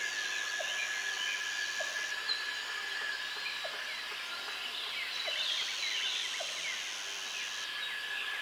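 Outdoor wildlife ambience: many small birds chirping over a steady high drone, with a short low call repeating about once a second.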